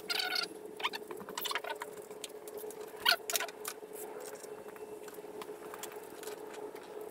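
Wrench working the cylinder head nuts of an A-series engine during tightening: scattered metallic clicks and short squeaks, busiest in the first second and again about three seconds in, over a faint steady hum.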